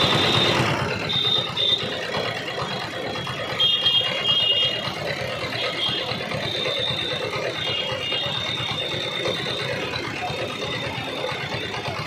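Steady mechanical rattling and whirring from a toy vehicle running, with a faint high whine that comes and goes.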